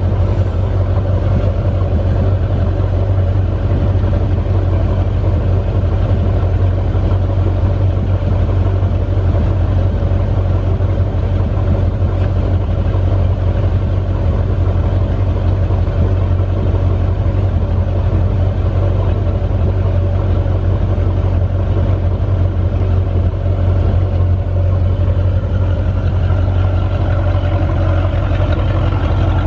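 MerCruiser boat engine idling steadily out of the water on flush water, warming up so its thermostat opens.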